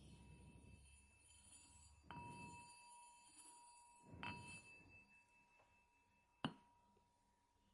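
A small bell struck three times, about two seconds apart, each faint ring carrying on until the next stroke; the last strike is the sharpest.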